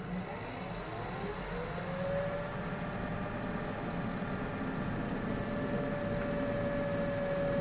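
A car running, with a tone that rises over the first couple of seconds as it gathers speed and then holds steady over a low rumble.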